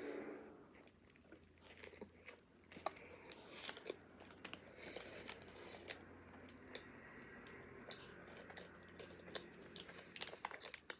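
Faint chewing of a banh mi sandwich: irregular crunching and small wet mouth clicks as the crusty bread roll and fillings are chewed.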